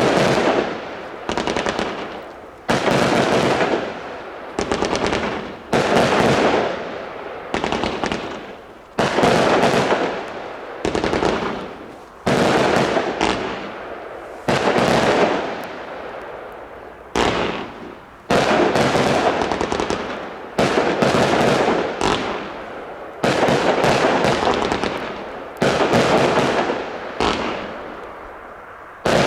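Firework battery (Lesli Smoke Elephant cake) firing salvos of small bouquet shots: about twenty sharp volleys, roughly one every second and a half, each a quick cluster of reports that fades before the next.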